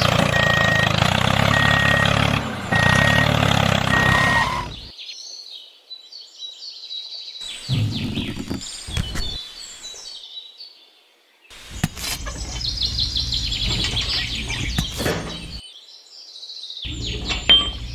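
A steady tractor engine sound that stops suddenly about five seconds in, followed by birds chirping, with patches of lower mechanical noise in between.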